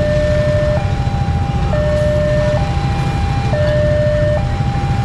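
Railway level-crossing warning alarm sounding its electronic two-tone signal, alternating low and high about once a second, which means the barrier is closed for a passing train. Underneath runs a steady low rumble.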